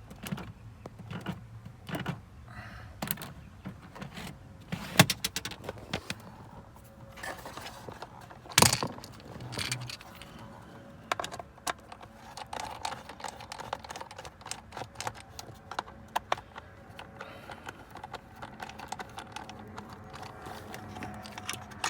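Irregular clicks, taps and knocks of hand work on a car blower motor assembly as a screw is removed and the fan regulator is worked loose from the blower housing. Two louder knocks come about 5 and 8.5 seconds in.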